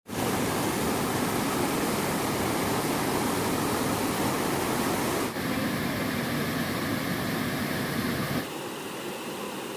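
Rushing water of a rocky mountain stream cascade and waterfall, a steady rush that changes abruptly about five seconds in and turns quieter about eight and a half seconds in.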